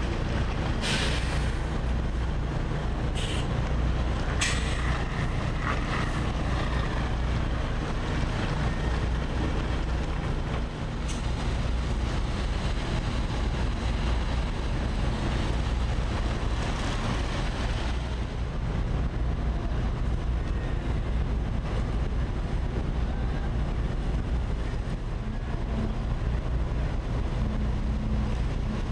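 Large diesel trucks running and idling, a steady low engine drone, with a few short air-brake hisses in the first few seconds.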